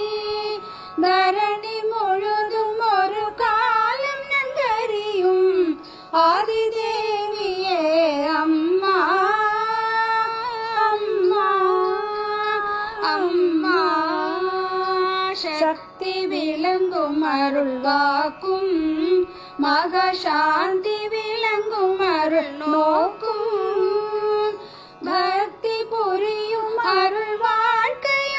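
Women singing a Tamil devotional hymn in Carnatic style, the melody gliding and bending between notes, with a few short breaks for breath.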